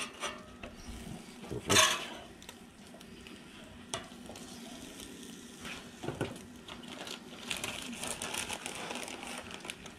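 Burritos sizzling on a Blackstone flat-top steel griddle, with a metal spatula scraping and clicking against the cooktop as they are turned. The sizzle grows louder in the last few seconds.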